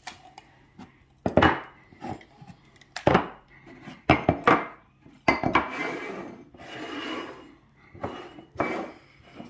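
Ceramic mugs and cups being shuffled upside down on a wooden tabletop: a string of clunks as they are set down and knocked together, with scraping as they slide across the wood in the middle.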